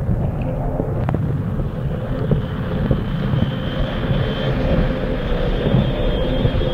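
Turbulent, foaming water churning and splashing over an action camera in a waterproof housing, heard as a steady, muffled, low rumble.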